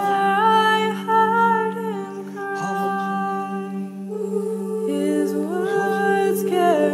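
Mixed a cappella choir humming wordless chords over a steady low drone. The upper voices glide up into a held chord at the start, settle lower after a couple of seconds, glide up again about five seconds in, and slide down near the end.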